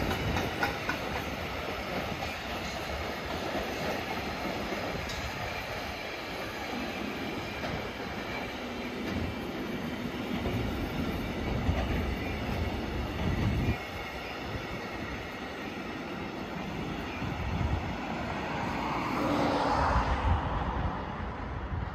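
Container freight train's wagons rolling past on the rails, with a clatter of wheels over the rail joints and some wheel squeal, then going on more evenly as the train draws away. A louder swell of noise rises near the end.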